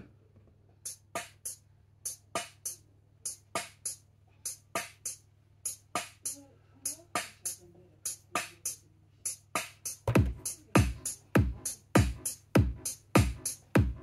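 Drum machine beat from an Akai MPC Live II: a quick repeating pattern of crisp percussion hits, joined about ten seconds in by a low kick drum on a steady pulse.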